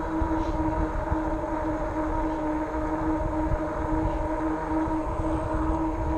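RadRover fat-tire e-bike cruising on pavement at a steady speed: a steady whine at one pitch with overtones, over a low rumble of wind on the microphone.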